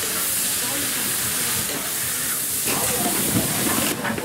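Steady high hiss and sizzle of food frying hard in a large steaming paella pan on a gas ring, easing off just before the end.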